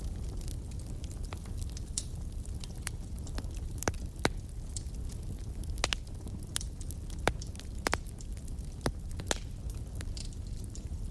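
Wood fire in a fireplace burning with a steady low rumble and irregular crackles and sharp pops from the logs.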